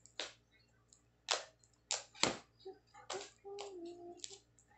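Fluffy slime made with shaving foam, kneaded and stretched by hand, giving a string of sharp pops and clicks as it is pressed and pulled. The loudest pop comes a little past two seconds in.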